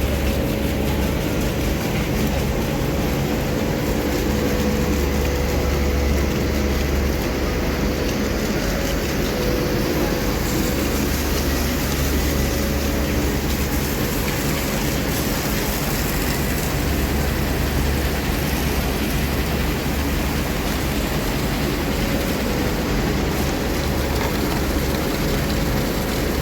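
A heavy diesel engine running steadily at a constant speed, with a deep low throb and an even hum.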